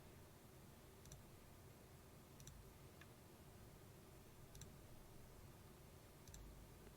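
Faint, widely spaced computer mouse clicks, four single clicks over a few seconds, against near-silent room tone.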